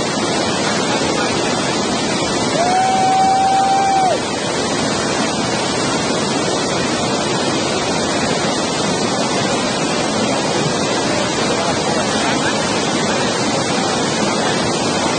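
Whitewater rapids rushing, a steady loud wash of churning water. A few seconds in, a single steady high note is held over it for about a second and a half.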